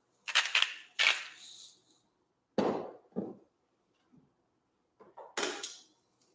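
Hand-twisted salt grinder grinding salt crystals in two short gritty bursts, then two dull knocks a little later, and one more short grinding burst near the end as pepper goes in.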